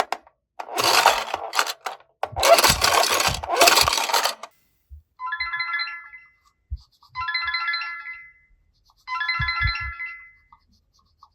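A few seconds of loud rustling, shaking noise, then a short electronic chime tune played three times, each run of notes about a second and a half long.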